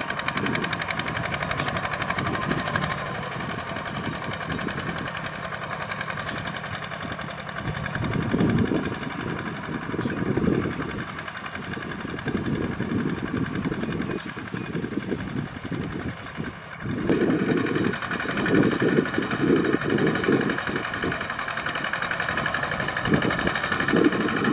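Kubota RT120 walking tractor's single-cylinder diesel engine running with a rapid, steady beat while it pulls a plough through field soil. It grows louder in stretches, about eight seconds in and again from about seventeen seconds.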